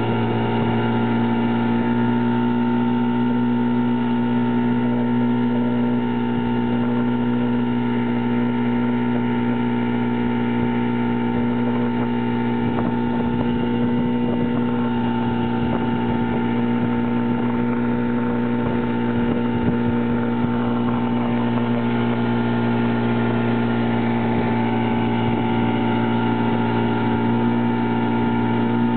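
1952 Scott-Atwater two-stroke outboard motor running steadily under way at a constant speed, driving a small boat.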